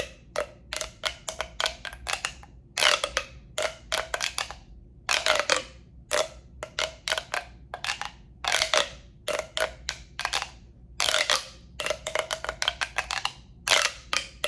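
Tapping and rubbing on a tube for ASMR, in quick clusters of sharp taps alternating with short scratchy bursts and brief pauses between them.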